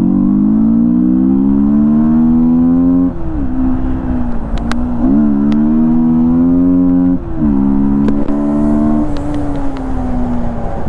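Yamaha MT-15's 155 cc single-cylinder engine, breathing through an open air filter, accelerating hard under way. The revs climb, drop sharply at upshifts about three and seven seconds in, then fall away near the end as the throttle eases.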